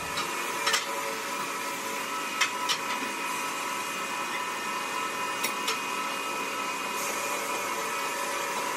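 Steady mechanical hum with a high whine. Over it come a few sharp metal knocks, in pairs, as a steel pry bar levers a rail trolley loaded with a sawn marble block.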